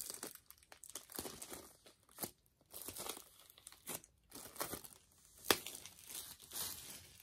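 Plastic shrink wrap crinkling and tearing as it is peeled off a boxed CD album, in a string of short rustling bursts, the sharpest about five and a half seconds in.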